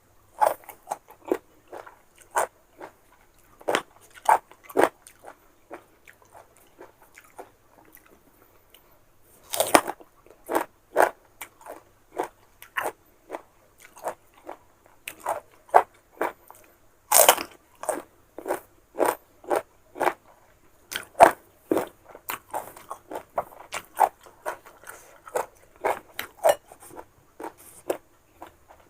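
Close-up crunching bites and chewing of raw, unripe young mango slices: many sharp crisp crunches in irregular runs, with the loudest bites about ten and seventeen seconds in.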